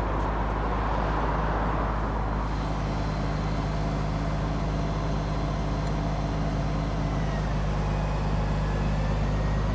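Bucket truck's engine running steadily and driving the boom hydraulics as the bucket is swung, with a faint high whine in the last few seconds.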